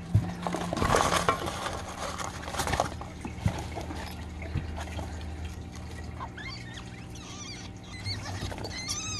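Hay and fur nesting material rustling and crackling as a litter of 9-day-old baby rabbits wriggles in the nest, loudest in the first three seconds. A steady low hum runs underneath, and in the last few seconds a run of short, high, squeaky chirps starts up.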